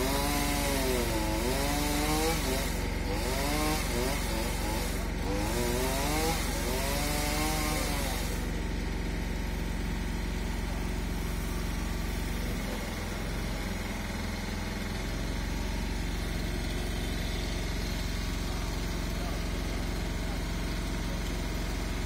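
Chainsaw revving up and down through several cuts, its pitch sweeping up and falling again every second or two, then stopping about eight seconds in. An engine idles steadily underneath, which fits the aerial work platform's engine.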